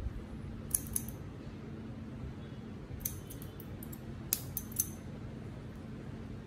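Barber's thinning scissors snipping hair: short, crisp snips in small groups of two or three, with pauses between them.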